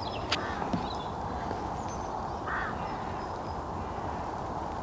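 Outdoor riverside ambience: a steady rush of wind and flowing water, with a few faint, short, high bird chirps and a brief noisy call about halfway through.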